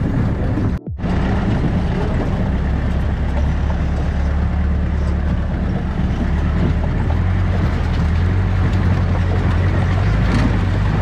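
Willys jeep's engine running with a steady low drone as it drives over a stony riverbed, with road and tyre noise over it. The sound drops out briefly about a second in.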